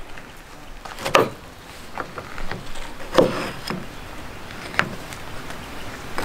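Fixed-blade knife cutting lemon slices in half on a small cutting board, the blade knocking onto the board a few times; the sharpest knocks come about one, three and five seconds in.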